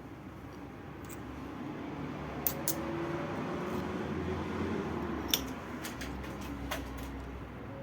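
A small machine humming steadily while something rubs and scrapes, growing louder in the middle, with a few sharp metallic clicks.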